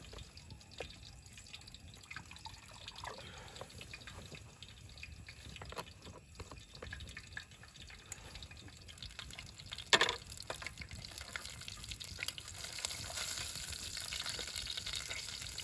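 Hands at work preparing food over a camp cooking setup: scattered small clicks and knocks, one sharp knock about ten seconds in, then a steady hiss building from about twelve seconds in.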